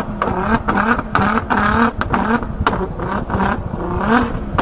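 Car exhaust popping and banging repeatedly, about two or three sharp cracks a second, over a running engine.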